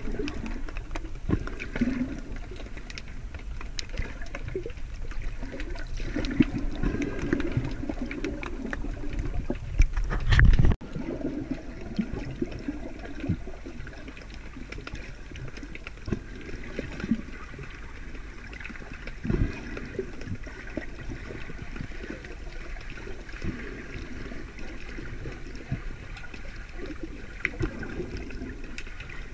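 Muffled underwater sound of seawater heard through a submerged camera, with gurgling and sloshing and scattered small clicks. A louder low rumble builds about ten seconds in and cuts off suddenly.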